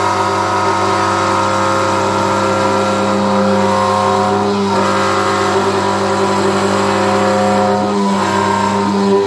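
A 500 W ER11 spindle motor on a desktop CNC router runs at about half speed as its 3 mm bit cuts wood, giving a loud, steady whine. The pitch shifts slightly about four and a half seconds in and again near eight seconds.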